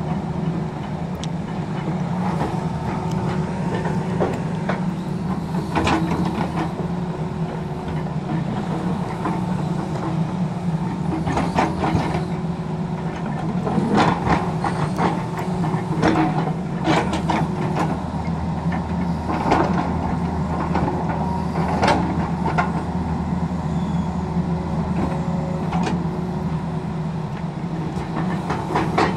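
Tracked hydraulic excavator's diesel engine running steadily while it digs, with scattered sharp clanks and scrapes of the steel bucket against rock and gravel.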